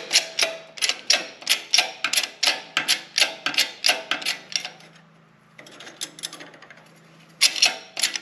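Shop press pump clicking rapidly and evenly, about four clicks a second, as the ram is run down onto the overdrive assembly to compress the clutch pack for its snap ring. The clicking goes fainter for a few seconds around the middle and comes back loud near the end.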